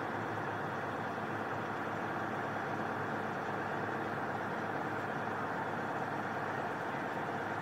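Vehicle engines idling steadily, most likely the ambulances parked with their warning lights on; the sound holds even, with no change in level.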